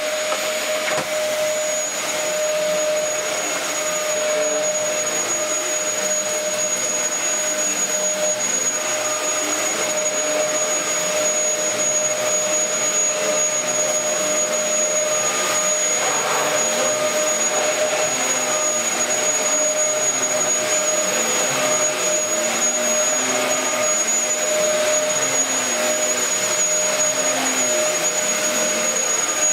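Dyson DC04 upright cyclonic vacuum cleaner running steadily while vacuuming, a high steady whine over the rush of its motor. The machine is running normally on its newly repaired cable.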